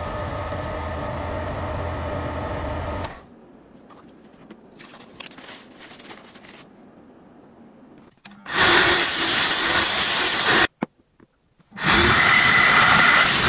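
Power tools working on a rusty knife blade: a steady motor sound for about three seconds, then quiet handling with faint clicks, then two loud bursts of harsh noise of about two to three seconds each.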